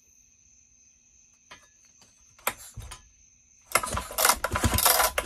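A few faint clicks, then the Husqvarna 1100 chainsaw's recoil starter is pulled hard, whirring and rattling as it spins the engine over with the spark plug out to test the new aftermarket ignition coil for spark.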